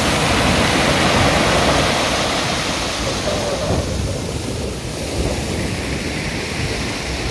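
Sea surf breaking and its foam washing up a pebble beach, a steady rushing hiss that swells strongest in the first couple of seconds and eases off a little after that.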